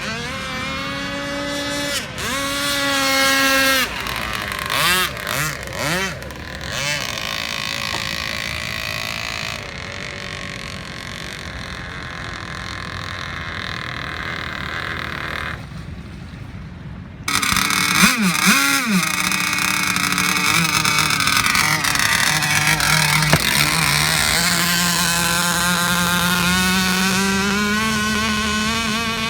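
Radio-controlled speedboat motor running flat out, its pitch swooping up and down as the boat passes by. About 17 seconds in the sound jumps suddenly louder, and near the end the pitch climbs steadily.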